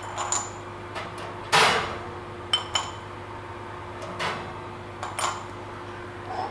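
Hot spark plugs being handled with pliers and dropped into a cereal bowl: a series of sharp metallic clinks, with one louder knock about one and a half seconds in, over a steady low hum.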